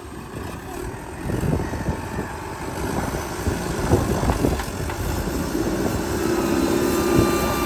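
Backhoe loader's diesel engine running under load as its front bucket shoves a mound of soil, with scattered knocks. The engine grows louder over the last couple of seconds.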